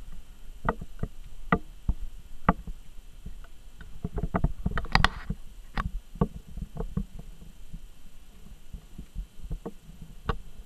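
Corgi puppy playing tug with a plush puppet on a wooden floor: irregular clicks and taps of claws and toy on the floorboards, over low thumps and rumble of the scuffle. A louder, denser flurry comes about five seconds in.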